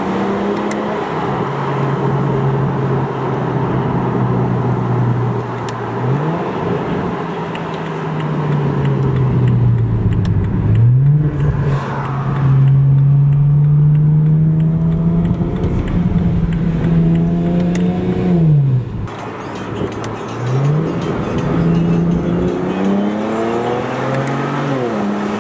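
BMW 335i turbocharged straight-six through a muffler-deleted exhaust, heard from inside the cabin while driving. The exhaust drones at steady cruise, and its pitch climbs and drops several times as the car accelerates and lifts off.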